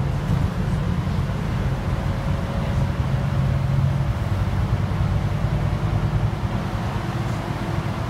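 Scania Citywide articulated city bus heard from inside the passenger cabin while driving: a steady low engine hum with road and tyre noise, and a faint whine rising in pitch over the first few seconds.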